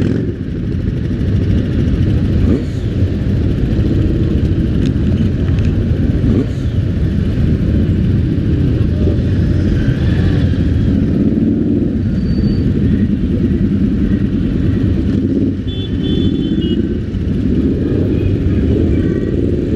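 Several motorcycle engines idling and pulling away slowly past at close range as a group sets off, a steady low rumble.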